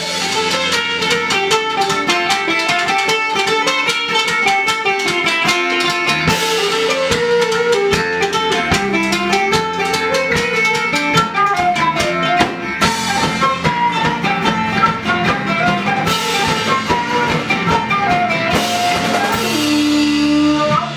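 A band playing an upbeat Irish folk-punk tune: a flute carries the melody over strummed acoustic guitar, electric bass and a drum kit keeping a steady beat.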